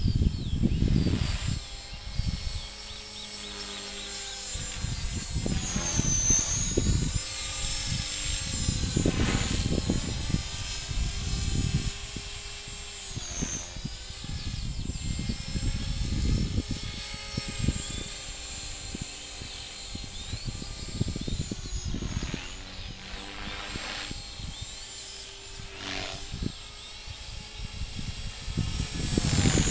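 Align T-Rex 450 Pro electric RC helicopter whining overhead as it is flown, its pitch dipping briefly a few times as the load changes. Gusts of wind rumble on the microphone.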